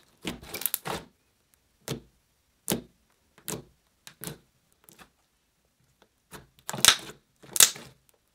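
Thick metallic slime, reactivated with activator, being pressed and squished by hand, giving short bursts of clicks about once a second; the last two, near the end, are the loudest.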